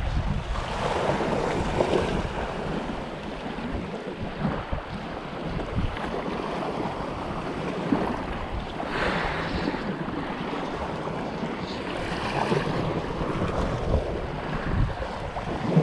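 Wind buffeting the microphone over small waves washing in shallow water, with a few louder swells of wash.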